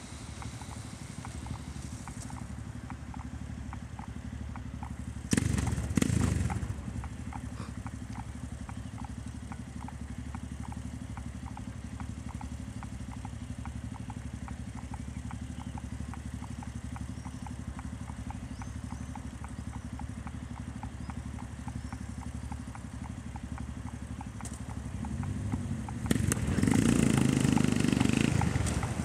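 Yamaha MT-03 with a Takkoni aftermarket end silencer, run without its dB-eater insert, idling with a steady low beat and small regular pulses. There is a short louder burst about five seconds in. Near the end the bike pulls away, and the exhaust gets loud as it accelerates.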